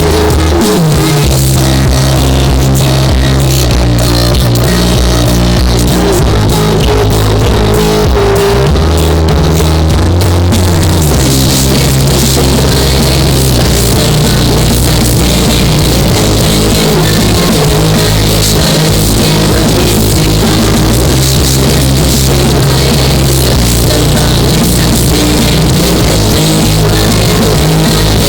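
Loud rock music with drum kit, bass and guitar, the drums and cymbals getting fuller about ten seconds in.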